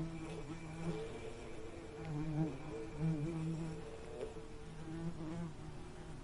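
Bees buzzing in flight, the buzz coming and going in stretches of a second or so with slight wavers in pitch, as bees pass close by.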